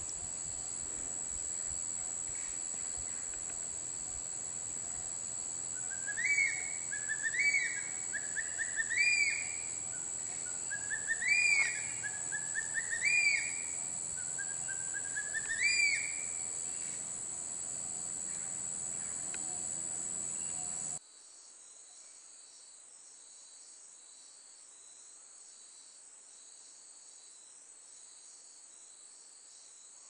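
Black hawk-eagle giving a series of six rising whistled calls, one about every second and a half, over a steady high-pitched insect buzz. About two-thirds of the way through the buzz cuts off suddenly, leaving a fainter insect trill.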